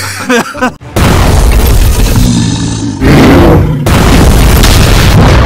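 Cartoon fight sound effects: two loud booms, one about a second in and another about three seconds in. Each runs on as a long heavy rumble. Short cartoon effect sounds come before the first boom.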